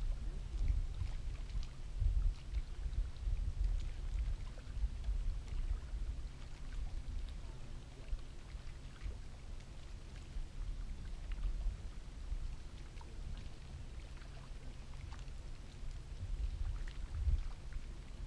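Ambience on the deck of a boat at rest on calm water: a low, uneven rumble with faint, scattered ticks.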